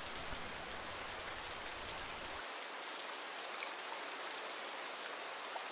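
Steady rain falling in a forest: an even, unbroken hiss of drops.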